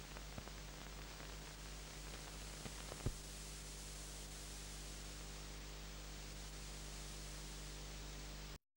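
Steady hiss with a low hum from an old videotape's sound track, the empty noise floor after the narration, with a few faint clicks and one sharper click about three seconds in. It cuts off abruptly to dead silence near the end.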